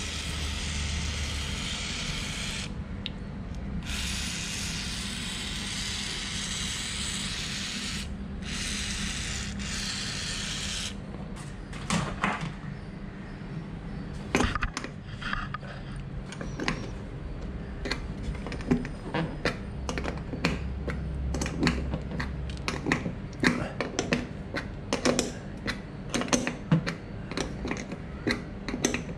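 Aerosol can of rust cleaner sprayed through its straw in three hissing bursts over the first eleven seconds. Then a small wrench clicks and clinks against the metal bolts of a motorcycle seat's mounting plate as they are undone.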